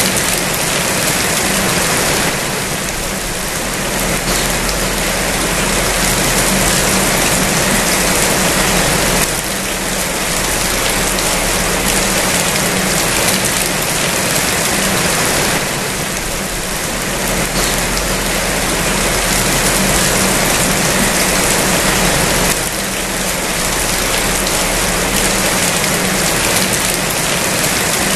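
Steady rain falling, a dense even hiss that eases slightly a few times before coming back up.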